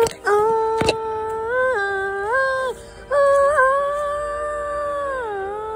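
Wordless vocal melody of long held notes stepping up and down in pitch. Two sharp clicks come in the first second.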